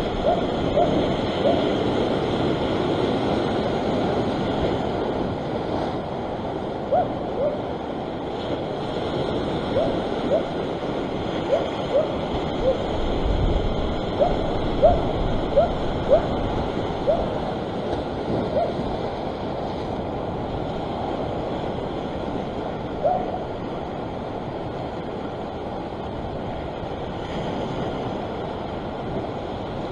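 Ocean surf washing over a rock ledge in a steady rush, with a dog barking over and over in short, sharp barks, most thickly around the middle.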